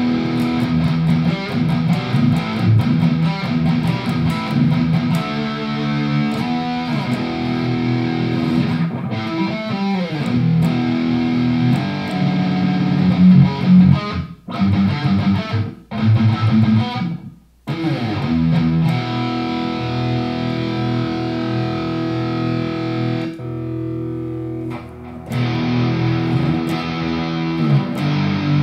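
Squier Sonic Mustang HH electric guitar played through an amplifier, picked up by a small overhead mic: a run of riffs and held chords. The playing stops briefly a few times about halfway through, then carries on.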